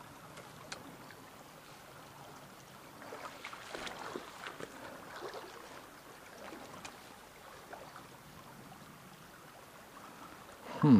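Shallow stream riffle running steadily over a stony bed, with a few faint clicks and scrapes now and then.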